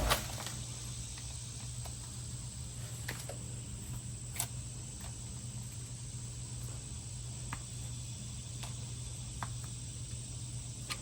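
Steady low hum with a handful of faint, scattered metallic clicks and ticks as the new tie rod end is handled and threaded on.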